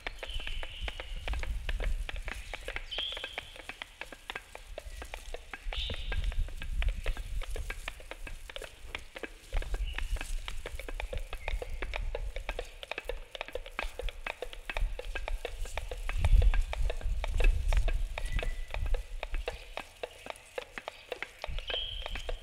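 Dense, steady crackling made of many fine clicks, with a few short high chirps scattered through it and low rumbles that swell and fade.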